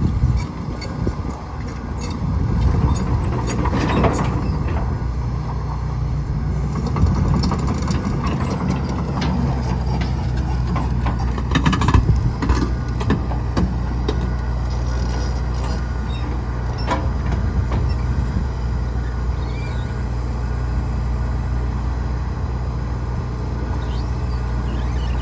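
John Deere 245G excavator's diesel engine running steadily under hydraulic load, with knocks and scrapes as the bucket and thumb pull debris off the trailer deck, loudest about twelve seconds in.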